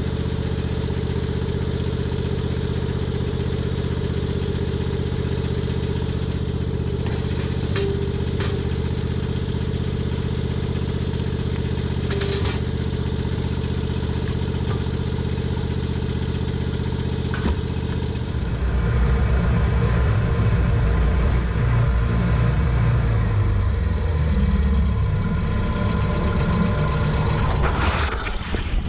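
Snapper Pro 48 commercial mower's engine running steadily, with a few sharp clicks and knocks. About two-thirds through it turns louder and rougher as the mower works with the Trac Vac leaf vacuum.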